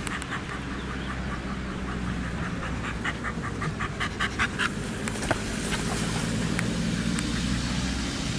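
A dog panting in quick, even breaths, about five a second, strongest a few seconds in, over a low steady rumble.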